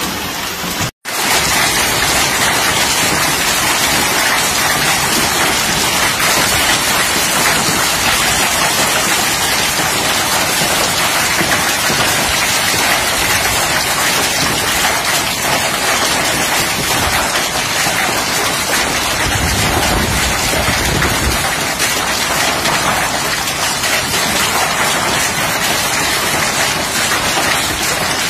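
Hailstorm: hail and heavy rain pelting down in a steady, dense hiss. The sound drops out briefly about a second in, and a low rumble comes about two-thirds of the way through.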